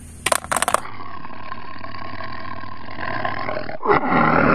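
A few quick clicks as a plastic toy tiger is dropped into a plastic basket. Then a steady rumble, and a louder tiger roar begins about four seconds in.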